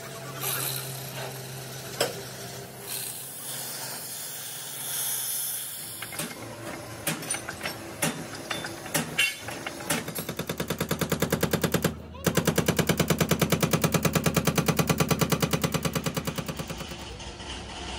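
An excavator's hydraulic breaker hammering in a rapid, even rhythm of about six blows a second; this is the loudest part. Before it come a steady machine hum and scattered metallic clicks.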